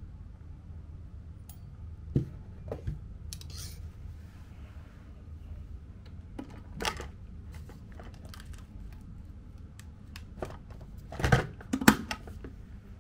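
Ceramic mug, spoons and a plastic electric kettle being handled on a tea tray: scattered small clinks, clicks and knocks, with the loudest pair near the end, over a steady low rumble.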